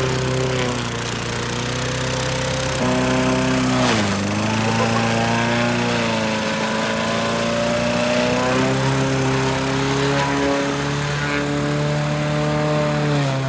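Toro lawn mower's small engine running steadily. Its speed steps up and down several times, with a sharp dip and recovery about four seconds in and another near the end, as the load changes in the mud.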